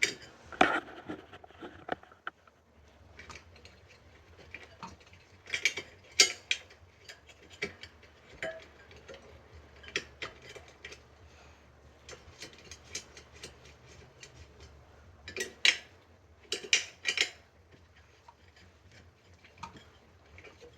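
Metal clicks and clinks of a hand tool working the spoke nipples of a bicycle wheel as the spokes are loosened, coming in uneven clusters with a louder run of clinks about six seconds in and again near the three-quarter mark.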